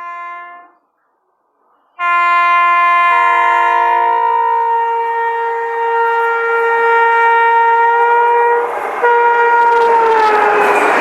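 WAP-4 electric locomotive air horns. One blast fades out in the first second, and after a short silence another starts about two seconds in as one long, loud honk. Near the end its pitch drops as the locomotive passes at speed, and the rush of the train takes over.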